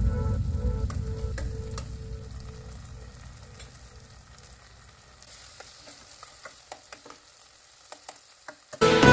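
Vegetables frying in a stainless-steel pot, with a soft sizzle and a metal spoon clicking against the pot as it stirs. Background music fades out over the first couple of seconds and comes back in loudly near the end.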